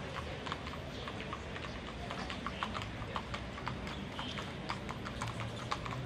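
Hooves of a pair of horses pulling an open carriage, clip-clopping on the road as they trot past in a quick, uneven run of knocks, several a second.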